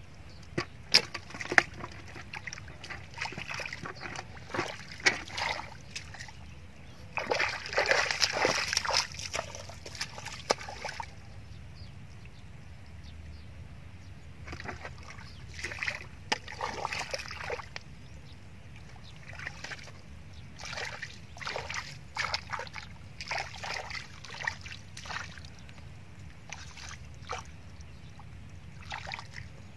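Wet mud and shallow muddy water squelching and splashing as a knife digs into the mud and bare feet and hands work through it, in irregular bursts. Two sharp slaps come near the start, and a longer stretch of steady splashing comes about seven seconds in.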